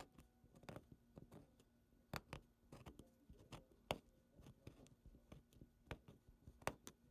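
Faint, irregular small clicks and scratches of fingernails picking and peeling the vinyl stencil off a freshly etched Zippo lighter's metal case.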